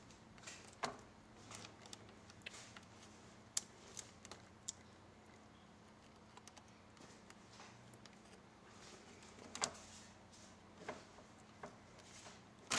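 Faint, scattered small clicks and taps of fingers or a small tool handling a thin cable and plastic parts while plugging the cable into a small connector on a laptop's screen assembly.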